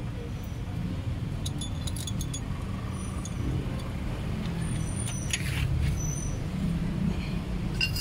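Light metallic clinks and clicks of a socket and ratchet being fitted and worked on a car's front axle nut, in small clusters about two seconds in, again at about five seconds, and near the end. Under them runs a steady low mechanical rumble, which is the loudest sound.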